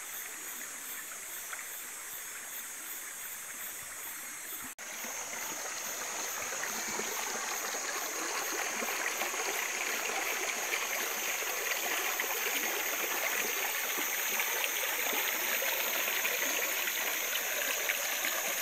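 Shallow rocky stream babbling and trickling over stones. After a brief dropout about five seconds in, the water sound gets louder and keeps rising slowly.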